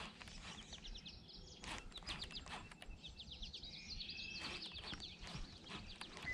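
Small birds singing in rapid, high trills: quick runs of repeated chirps, several times over, with a brief steady whistled note about four seconds in.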